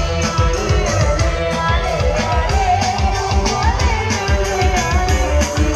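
Kecimol street band's amplified dance music playing loud, with drums beating a steady rhythm under a wavering melody line.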